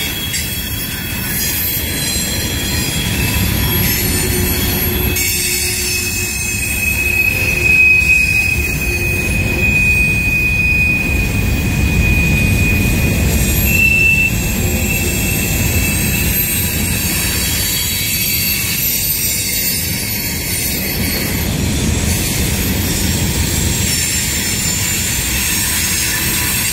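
CSX freight train's cars rolling past with a steady low rumble, their wheels squealing on the rails in thin high tones that come and go.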